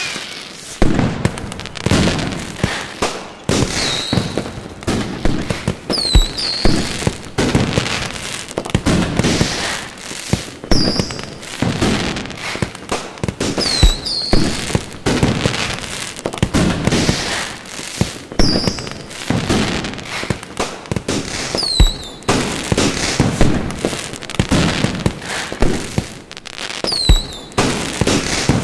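Fireworks display: aerial shells bursting in quick succession with bangs and crackle, and several short high whistles falling in pitch among them.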